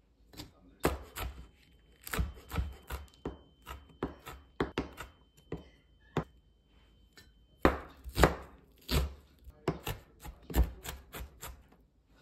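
Chef's knife chopping green chili peppers and then onion on a cutting board: a quick, uneven run of knife strikes on the board.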